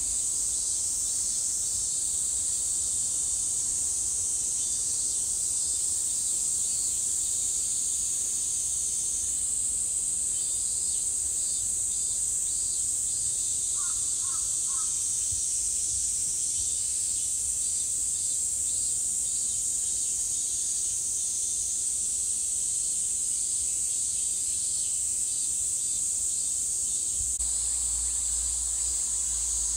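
Steady high-pitched insect chorus. About halfway through, a bird gives three short calls in quick succession, and a low rumble grows near the end.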